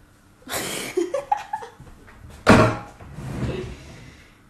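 A person's short laugh, then one loud knock about halfway through.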